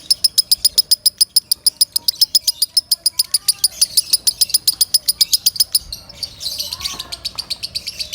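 Lovebird singing loudly in a long, fast run of high, evenly spaced chirps, about nine a second, breaking into a brief rougher chatter about six seconds in before quicker chirping resumes.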